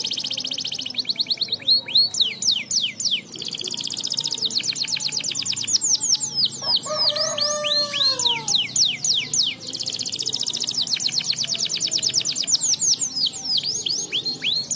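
Domestic canary singing: long fast trills of rapidly repeated high notes broken by quick falling sweeps, with a lower falling phrase about midway.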